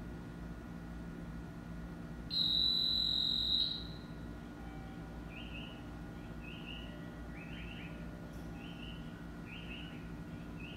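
A shrill whistle blown once, steadily for about a second and a half, the departure signal for a train standing at the platform, over a steady low hum. From about halfway through, short high chirps repeat roughly once a second.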